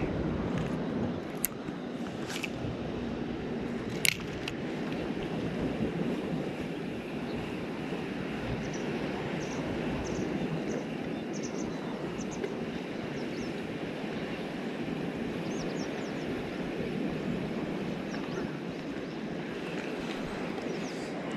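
Steady wind and sea-water noise, with a few sharp clicks in the first four seconds and faint high chirps in the middle.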